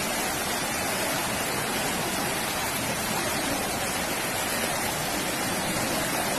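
Fast-flowing floodwater rushing past in a steady, even wash of noise.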